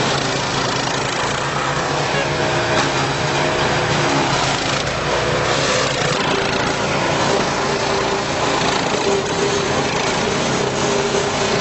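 The 15 hp engine of an ATV-towed wood chipper shredder running steadily at a constant loudness, its pitch shifting a little about halfway through.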